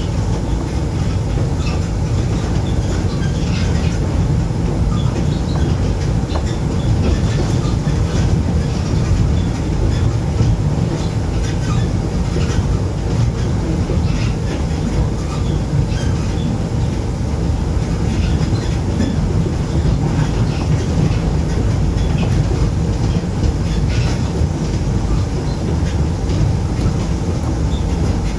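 Moscow Monorail train running along its elevated beam, heard from inside the car: a steady low rumble from its rubber-tyred running gear, with faint scattered clicks and rattles.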